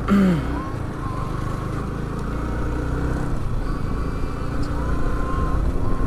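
Sport motorcycle engine running steadily while riding, over a continuous low wind rumble, growing gradually a little louder.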